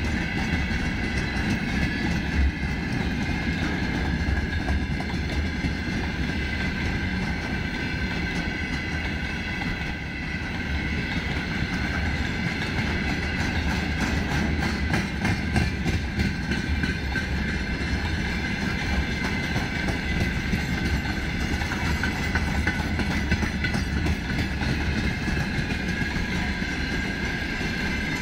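A freight train of open-top gondola wagons rolling past at steady speed: continuous wheel-on-rail noise with the clickety-clack of the wheels over the rail joints.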